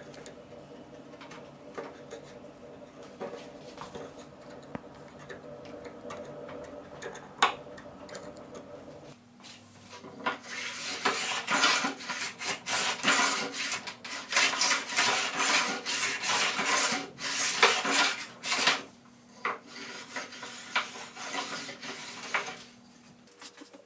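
Hand edge tool cutting oak by hand: light paring scrapes and a few small taps at first, then from about ten seconds a fast run of loud, rasping cutting strokes for some nine seconds, easing to lighter strokes near the end.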